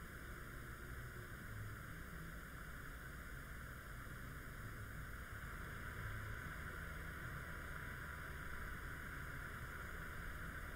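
Steady low hiss with a faint low hum: background room tone and recording noise, with no distinct sound events.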